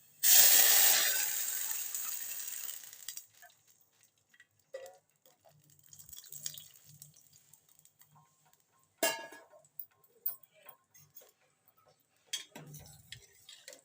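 Hot oil tempering of mustard seeds, cumin and curry leaves sizzling loudly as boiled rasam is poured into the pan. The hiss dies away over about three seconds, followed by a few scattered metal clinks against the pan.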